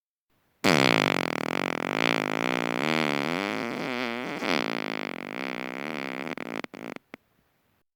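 A long fart of about six seconds, its pitch wavering up and down, breaking off into a few short sputters at the end.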